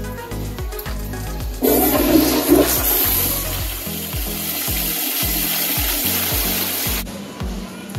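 Commercial toilet flushed with a foot-pedal flush valve: a loud rush of water starts about one and a half seconds in and cuts off abruptly about seven seconds in. Background music with a steady low beat runs underneath.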